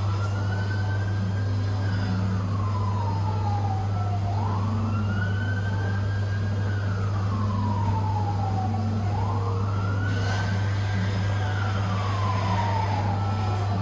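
Emergency vehicle siren in a slow wail, rising and falling about every four to five seconds, three times over. It sounds over a steady low hum.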